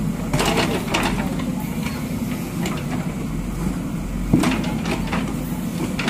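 JCB backhoe loader's diesel engine running steadily while the rear bucket scrapes and knocks against broken bricks and soil, with a sharp knock about four seconds in the loudest.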